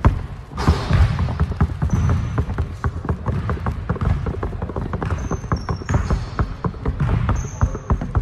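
Basketball dribbled fast and low on a gym floor: a quick run of sharp bounces, several a second, with a few short sneaker squeaks in the second half.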